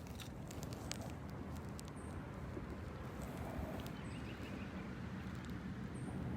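Kayak being paddled: a low steady rumble of water moving against the hull, with a few light clicks and knocks from the paddle.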